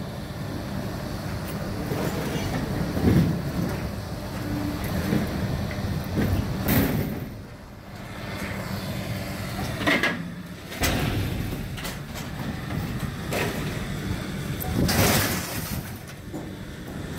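A heavy machine's engine runs steadily as scrap cars are lifted off a trailer. Three short, harsh noises cut through, about seven, ten and fifteen seconds in.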